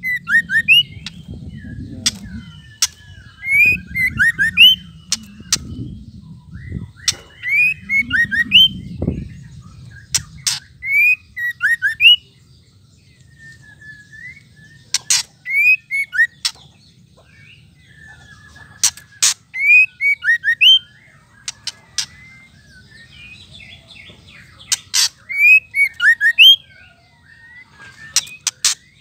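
White-rumped shama (murai batu) giving its 'ketrekan' call: sharp clicks mixed with short rising whistled notes, repeated in phrases every few seconds.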